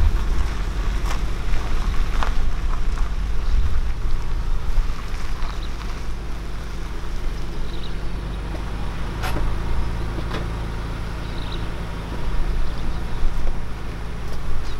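Car engine running with a steady low hum, with a few faint clicks over it.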